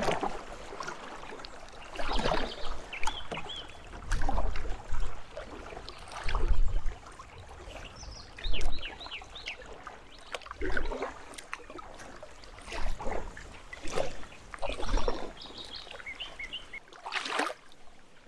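Kayak paddle strokes dipping and splashing in the creek water, one about every one to two seconds, with birds chirping now and then.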